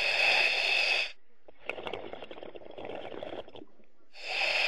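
A scuba diver breathing through a demand regulator: a loud hissing inhalation of about a second, a longer, quieter crackle of exhaled bubbles, then another hissing inhalation near the end.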